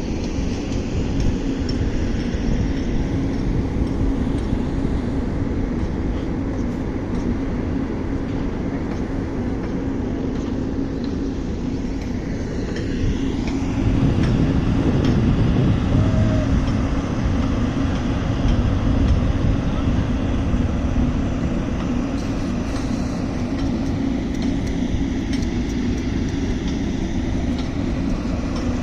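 An 8-ton vibratory asphalt roller working, its diesel engine and vibrating drum making a steady, heavy rumble that grows louder for a few seconds about halfway through.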